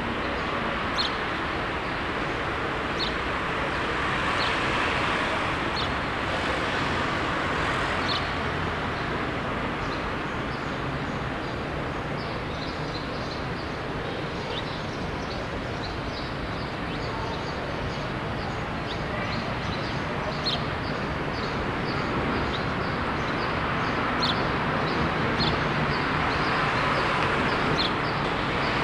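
Steady road-traffic hum of a city, swelling twice as vehicles pass, with small birds giving short, repeated chirps over it.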